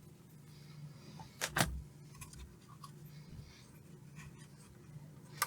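Quiet workbench sounds: two light clicks about a second and a half in and another near the end, over a faint steady low hum.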